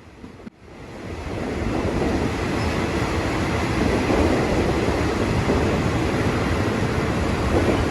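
Train running on the rails: a steady rumble and rattle that builds up over about the first second, after a short break, and then holds.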